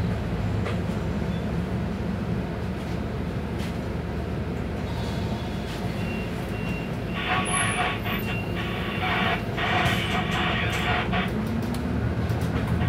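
Scania Citywide CN280UB city bus engine running steadily, heard from inside the passenger cabin. About seven seconds in, a harsh signal sounds in three bursts over the steady hum.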